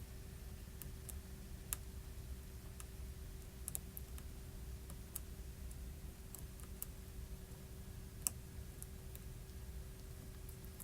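Scattered light clicks and ticks of small tools and fingers handling an opened iPhone 6 Plus while its battery adhesive pull-tabs are being worked, with two sharper clicks, one near the start and one later on, over a steady low hum.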